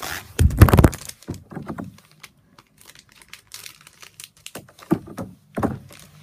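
Plastic blind-bag package crinkling and rustling as it is cut open with scissors: a loud burst of crinkling and knocks about half a second in, scattered small clicks, and two more bursts of crinkling near the end.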